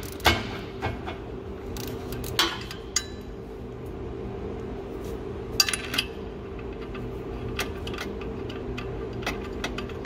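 Hand tools clinking and knocking against metal in a few sharp strikes, with a small cluster of quick clinks about halfway through, over a steady hum.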